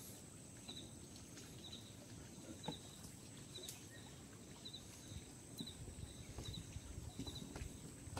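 Faint paired chirps from a small creature repeating about once a second over a steady high hiss. From about six seconds in, low rustling and knocking as the wire-ring crab trap net is handled in the wooden boat.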